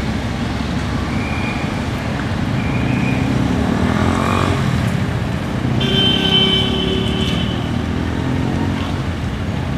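City road traffic: cars passing with a steady engine and tyre noise. A brief higher-pitched tone sounds about six seconds in.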